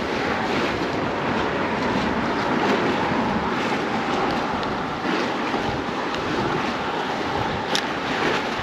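Steady wind rushing over the microphone, with choppy sea water below. A short click near the end.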